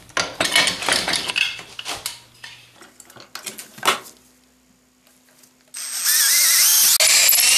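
A few knocks and rustles as the clamped wood is handled, a sharp click, then from about six seconds in an electric drill runs loudly, its bit boring a hole for the 1/8-inch tensioning rod into a hardwood saw handle, the whine wavering as it cuts.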